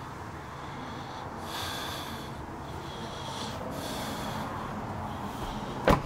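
A person breathing loudly through the nose close to the microphone, a breath every couple of seconds, over a steady background noise. A single sharp knock sounds just before the end.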